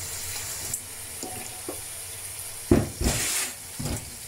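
Kitchen tap running steadily into a pot for soaking rice, with a few louder splashing bursts about three seconds in.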